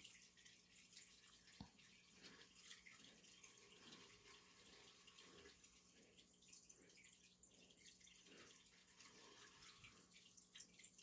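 Near silence: room tone with a faint steady hum and faint, scattered small ticks.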